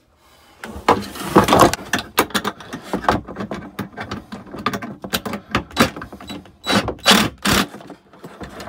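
Hands working a heavy-gauge wire into a breaker sub panel's terminal and tightening it: irregular clicks, small knocks and rustling scrapes, with a few louder rubs close to the microphone.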